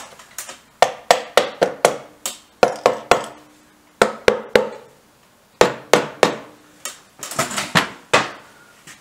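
About twenty sharp taps on a BSA C15T motorcycle's gearbox cover, coming in quick groups of two to four, each with a short ring. The cover is catching on something and won't go fully home.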